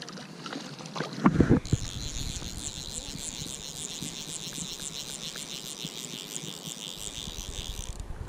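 A few loud knocks about a second in, then a fly reel's clicker runs in a rapid, even rattle for about six seconds as a hooked fish is played. Wind rumbles on the microphone throughout.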